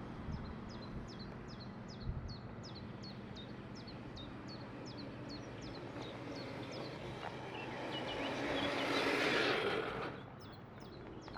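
A bird repeats a short, sharp downward chirp about twice a second over steady outdoor background noise. About eight seconds in, a rushing noise swells up and then falls away, and the chirps come back after it.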